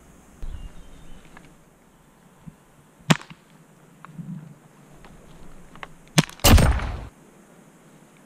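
Airsoft replica gunfire: a sharp crack about three seconds in, another just after six seconds, then straight away the loudest sound, a noisy burst lasting about half a second.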